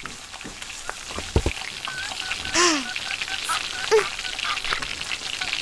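A steady crackling hiss, like frying or light rain, with a few faint chirps scattered through it and a brief falling voice-like sound about two and a half seconds in.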